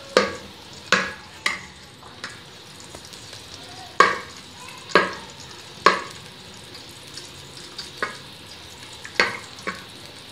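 Metal spoon scraping and knocking against a metal cooking pot, about nine sharp clatters spaced unevenly, while stirring lumps of solid ghee melting in hot ghee. A low, steady sizzle from the hot ghee runs underneath.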